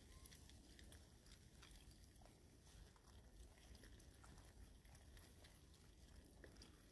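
Faint, soft smacking and clicking of a macaque biting and chewing soft yellow fruit, heard as scattered small clicks over a low background hum.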